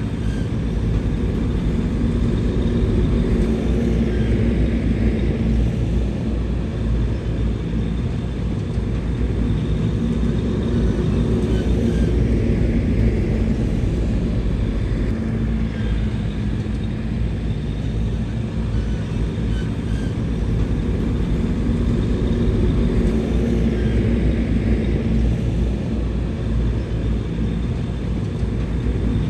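Bulldozer's diesel engine running steadily at working speed, the sound swelling and easing every several seconds as it pushes dirt, with faint clinks now and then.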